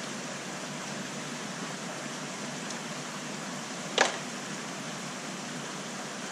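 Steady background hiss, with one sharp click about four seconds in as the two halves of a wire-mesh minnow trap are unclipped and pulled apart.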